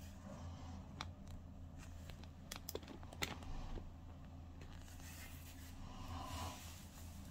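Quiet room tone: a steady low hum with a few light clicks about a second in and again around three seconds, and a soft rustle near the end.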